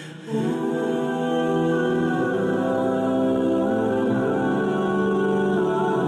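Slow background music of long held notes, with a brief dip in level at the very start.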